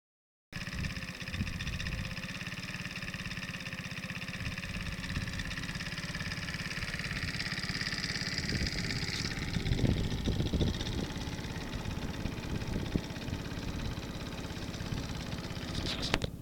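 ABM Tornado's small engine running steadily at idle, starting about half a second in, with a sharp click near the end.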